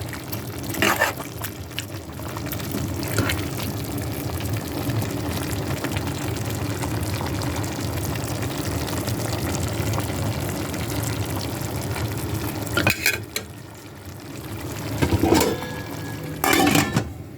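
Pot of food sizzling and simmering on the stove as it is stirred, a steady frying hiss with occasional clatters of the spoon against the pot.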